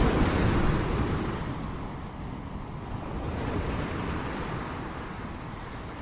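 Ocean waves washing on a shore: the surf is loudest at first, then fades away and stays quieter for the rest.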